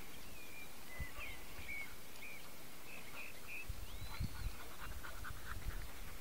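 Distant dogs yelping and barking: a string of short high calls, then a quicker run of barks near the end.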